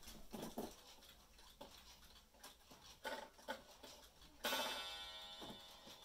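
Wooden shelf clock being worked by hand at its hands, with several faint clicks from the movement, then a single chime strike about four and a half seconds in that rings and fades over about a second. The owner says the clock is broken and won't chime on the hour.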